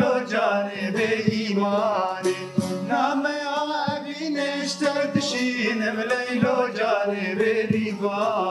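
Two men singing a Kurdish song, with plucked long-necked saz (bağlama) and a banjo-like lute strumming along.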